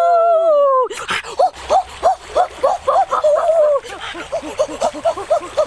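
A long, loud howl by a boy, arching in pitch, that breaks off about a second in. It is followed by a run of short, rising-and-falling yelping calls, about three a second.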